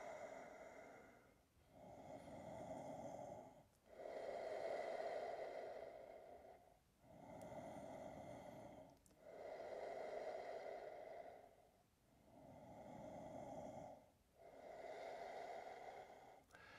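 A person breathing slowly and evenly, with audible, faint in- and out-breaths of about two seconds each, seven in all, while holding sphinx pose.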